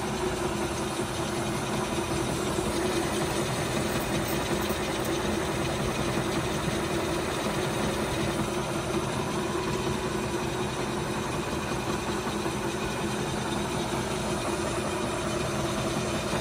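Metal-turning lathe running steadily with a piston spinning in its four-jaw chuck: an even hum of the motor and gearing that holds constant throughout.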